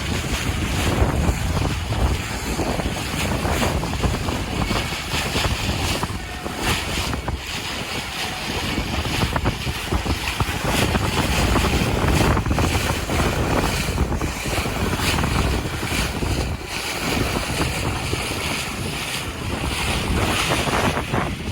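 Strong wind buffeting the microphone with a gusting rumble, over water rushing and splashing along a sailboat's hull as it sails fast.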